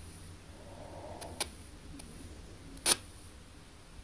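P-SB7T Spirit Box sweeping FM stations through an ANC-Mini noise filter: low hiss broken by short, sharp bursts of radio sound, two close together about a second and a half in and a louder one near three seconds.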